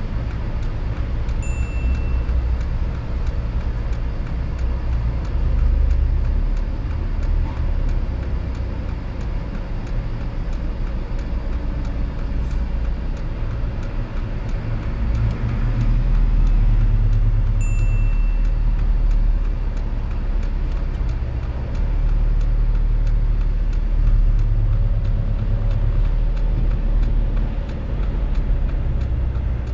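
Car driving, heard from inside the cabin: steady low engine and road rumble, with two short high beeps, one near the start and one about sixteen seconds later.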